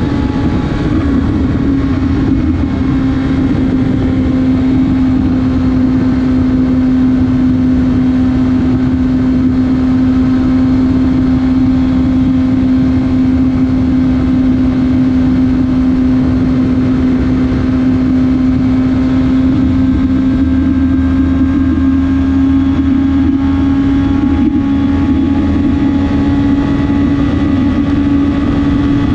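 BMW S1000RR's inline-four engine running at steady revs, heard from on board, over a steady rush of wind and road noise. The engine note holds one pitch, dipping slightly early on and rising a little near the end.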